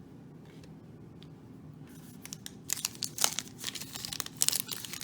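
A 2020 Panini Prizm Baseball card pack wrapper being torn open and crinkled: a quick run of sharp, irregular crackles starting about two seconds in.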